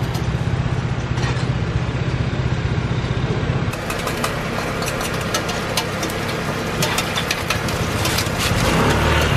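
Small portable generator running with a steady hum. After a cut about four seconds in, sharp clicks and scrapes of tongs and a spatula working on a hot pancake griddle, over a light hiss.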